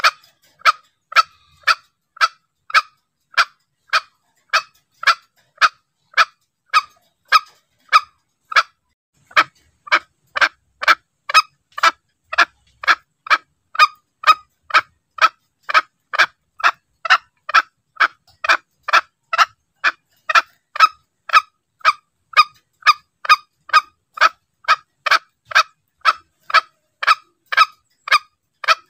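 Green junglefowl calls played as a hunting lure: a long run of short, sharp notes, about two a second. The run breaks off briefly about nine seconds in, then goes on a little faster.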